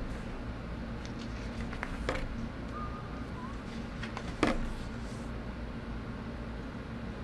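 Pages of a thick hardcover comic omnibus being turned by hand. Two short page flaps stand out, about two seconds in and a louder one about four and a half seconds in, over a steady low hum.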